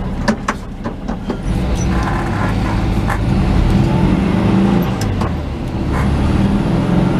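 A truck driving along a road: steady engine hum and road noise, with a few sharp ticks in the first second or so.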